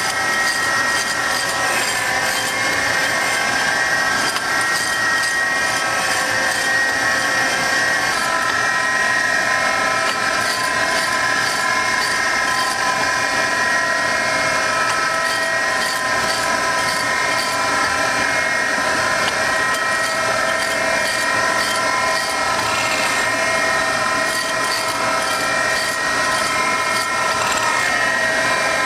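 Gallmeyer & Livingston No. 25 hydraulic surface grinder running: its wheel spindle and hydraulic drive make a steady mechanical hum with several held tones, which shift slightly in pitch about eight seconds in.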